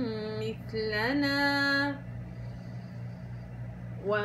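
A woman chanting Quran recitation with tajweed, drawing out the last word 'mithlana' in long held notes. She pauses for about two seconds with only a steady low hum underneath, then the chant resumes near the end.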